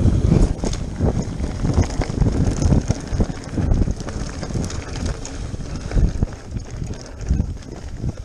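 Mountain bike rattling and clattering down a rocky, muddy trail, its tyres on loose stones, with wind noise on the microphone. A burst of heavy thumps at the start as the bike drops off the wooden bridge ramp onto the dirt.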